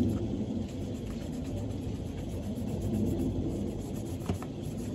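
Steady low rumble of background noise, with two faint ticks a little past four seconds in.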